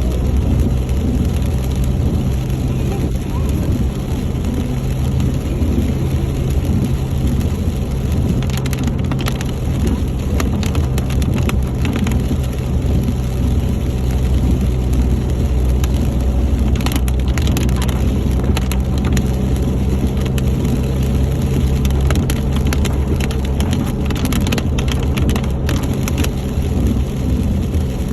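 Steady low engine and road drone heard from inside a moving vehicle, with rain striking the windshield and body as scattered sharp ticks that come in clusters.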